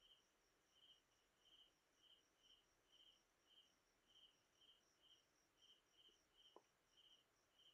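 Near silence with faint, even chirping of a cricket, about two short high chirps a second.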